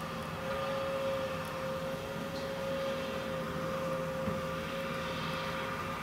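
A steady mechanical hum holding one constant pitch.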